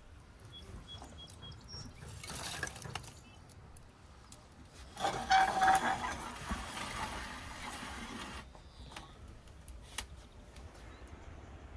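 Liquid being poured or splashed, in a short spell and then a longer, louder one about five seconds in, with a few light knocks.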